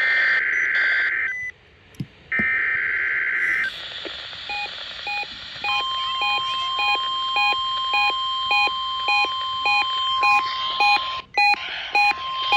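NOAA Weather Radio test signal: two buzzing SAME header data bursts, then the steady 1050 Hz warning alarm tone. From a few seconds in, a weather radio receiver's alarm beeps about twice a second over the tone, set off by the test.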